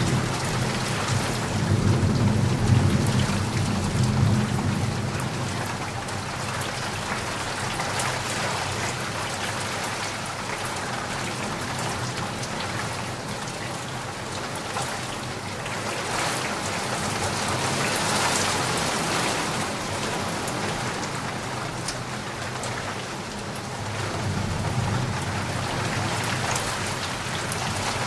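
Steady heavy rain falling, with low rolls of thunder near the start and again near the end.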